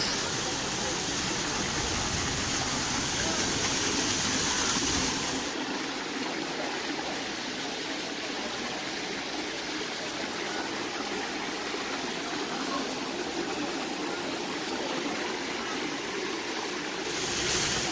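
Small waterfall cascading over rocks into a pool: a steady splashing rush of water. It gets a little quieter and thinner about five seconds in.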